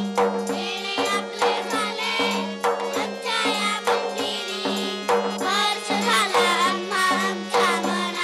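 Group of young children singing a song together through microphones and loudspeakers, accompanied by tabla strokes and a steady held drone note.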